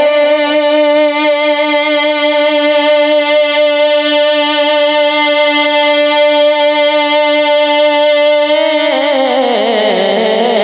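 Male voice singing a naat, holding one long, steady note for about nine seconds, then sliding down in a wavering run near the end.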